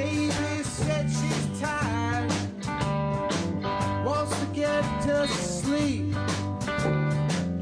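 Background music: an instrumental stretch of a bluesy country song, guitar over a steady beat.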